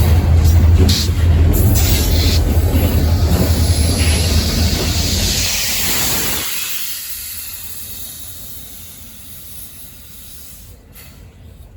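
Diesel-hauled train passing close by, its low engine rumble and wheel noise loud at first. It drops away sharply about six seconds in and fades to a faint rushing as the train moves off.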